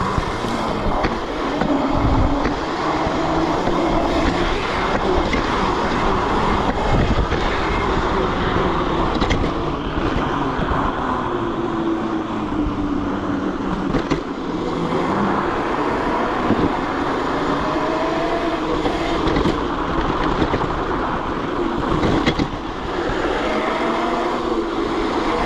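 A 72-volt Razor electric dirt bike riding over bumpy ice and snow. The motor's whine glides up and down with speed over a steady rushing rumble of tyres and wind, with a few knocks from bumps.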